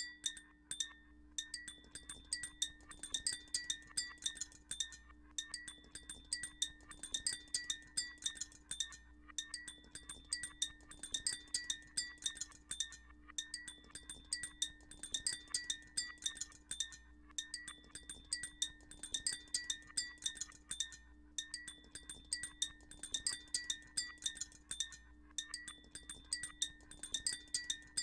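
Granular-synthesis output of a Max/MSP patch: a dense stream of short, bright, chime-like clicking grains, looped and stacked so that the pattern repeats about every four seconds. Steady high tones hold underneath.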